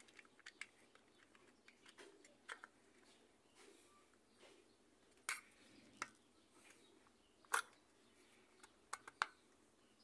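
Scattered small clicks and taps of plastic and metal from a Maytag washer timer's contact-blade pack being handled and pressed onto its mounting posts, with a few sharper clicks in the second half.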